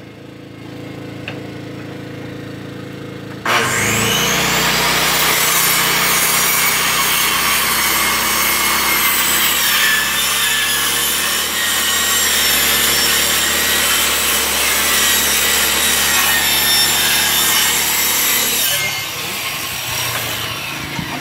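A steady engine hum, then about three seconds in a power saw spins up with a rising whine and cuts through plywood for about fifteen seconds before dropping away near the end.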